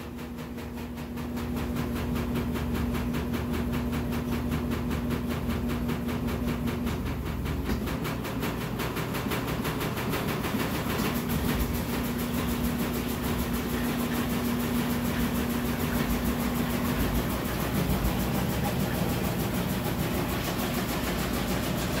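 Brastemp 14 kg top-load washing machine in its spin cycle, the drum spinning an unbalanced load of rugs and floor cloths. It runs with a steady hum and a fast, even pulsing, growing louder over the first two seconds. A steady whine sounds for about the first seven seconds, drops out, and returns for several seconds from about eleven seconds in.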